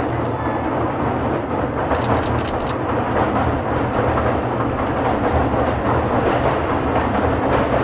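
Distant JR East E001 Train Suite Shiki-shima crossing a long viaduct, a steady rumble.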